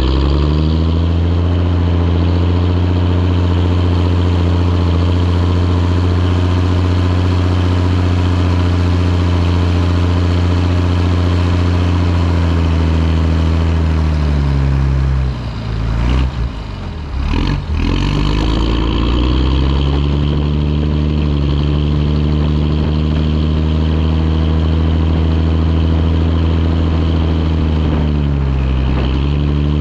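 Fendt 512c tractor's diesel engine running hard. Its revs fall and the sound sags briefly about halfway through, then build back up, with a smaller dip and recovery near the end.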